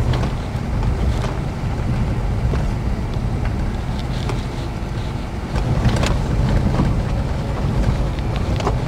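Wind buffeting the microphone over a steady low rumble, as from a moving vehicle.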